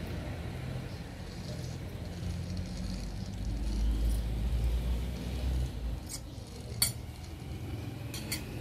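A metal fork clinks against a plate while eating pancit noodles: one sharp clink about seven seconds in and two quick clinks near the end, over a steady low hum.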